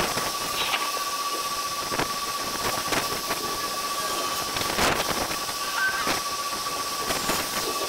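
Outdoor sound of an approaching thunderstorm sped up twenty times, squeezed into a steady hissing rush with a thin constant whine and scattered sharp clicks, the loudest about five seconds in.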